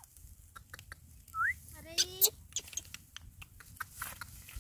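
Baby crab-eating macaque giving a short rising coo about a second and a half in, then a louder, lower call just after two seconds. Scattered crackles and clicks of dry grass underneath.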